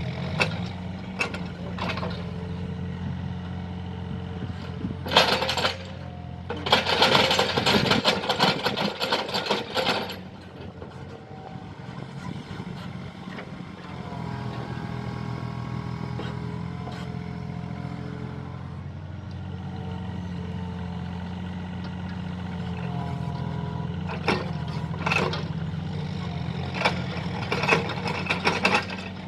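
Mini excavator's diesel engine running steadily under hydraulic load. Loud clattering stretches at about five seconds and from about seven to ten seconds, a whine that rises and falls in the middle, and a run of sharp knocks near the end as the machine works.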